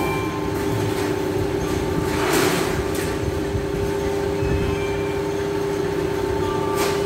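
Vertical form-fill-seal packing machine bagging French fries, running with a steady hum. A short rushing hiss comes about two and a half seconds in.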